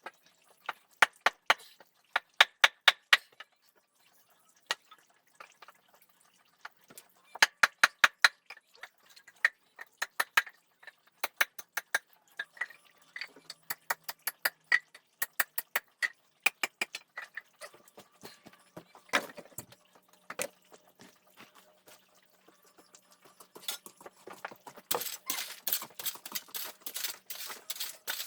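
Hammer blows in quick, evenly spaced runs of several strokes with short pauses between them, during the building of a firewood store. Near the end the knocks give way to denser rustling and crackling.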